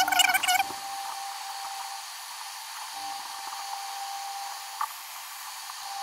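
Handheld electric heat gun running on its low setting: a steady hiss with a faint whine as it blows hot air onto a strip of HDPE plastic and the kayak's plastic hull to melt them for a weld. A short warbling call at the very start and a single click near five seconds.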